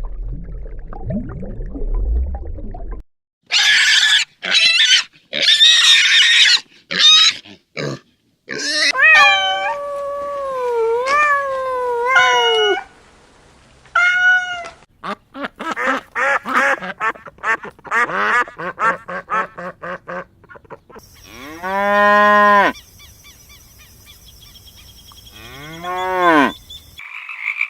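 A succession of different animal calls, cut one after another: a low rumble, then a string of shrill calls, gliding pitched cries, a fast run of short calls, and two arched cries near the end.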